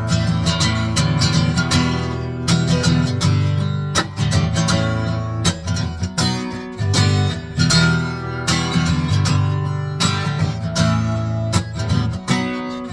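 Acoustic guitar strummed in a steady rhythm, an instrumental break in a country-style song.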